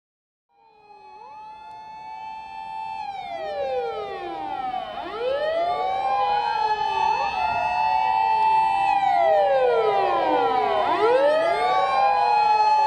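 Sirens of a convoy of Japanese fire trucks on an emergency run: several wailing sirens rise and fall out of step with one another over a steadier held tone. The sound fades in about half a second in and grows steadily louder.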